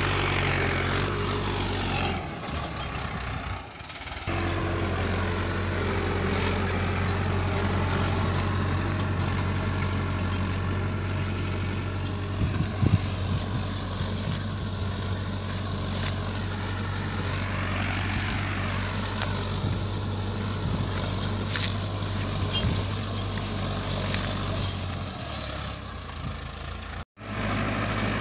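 Mahindra Arjun 555 DI tractor's diesel engine running steadily under load, pulling a three-bottom plough through hard, dry ground. There is a brief dip in the sound a few seconds in and a short dropout near the end.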